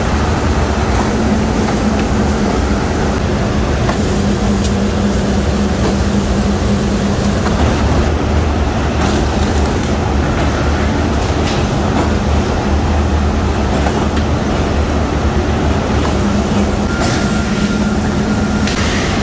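Hot rolling mill running: a loud, steady drone from the roll stands and their drives, with occasional short knocks as red-hot steel bars are fed through, and a brief high steady tone near the end.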